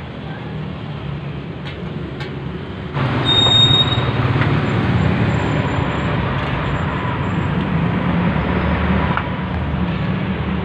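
Steady road traffic noise from passing vehicles, getting suddenly louder about three seconds in.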